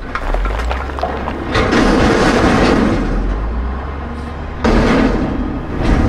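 Dump truck sound effect: a heavy truck engine rumbling low, with louder swells of noise about a second and a half in and again near the end.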